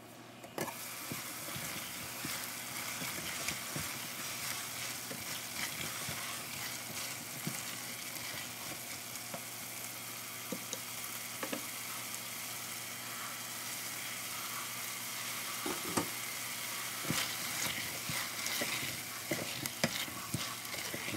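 Potato and bell pepper sabzi sizzling steadily in a stainless steel pot, starting about half a second in. A silicone spatula stirs the vegetables and scrapes and knocks against the pot now and then, more often near the end.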